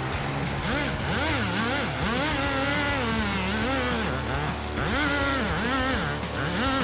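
Engine revved up and down again and again, in quick swoops of pitch, over a steady low hum.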